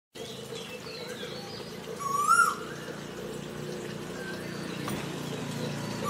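Asian koel giving one loud rising whistled call about two seconds in, with faint chirps of other birds and a low steady hum underneath.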